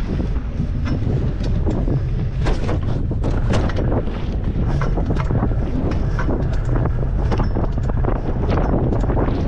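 Wind buffeting the microphone of a camera riding on a fixed-gear bicycle, a steady low rumble, with scattered sharp clicks and ticks throughout.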